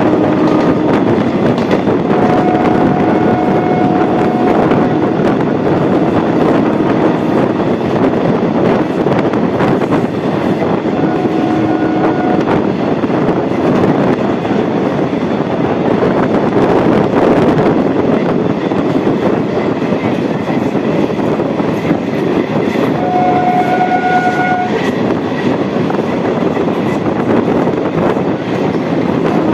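Electric multiple-unit suburban train running at speed, heard from on board: a loud, steady rumble of wheels on rail with rushing wind. A train horn sounds three times, about two, eleven and twenty-three seconds in.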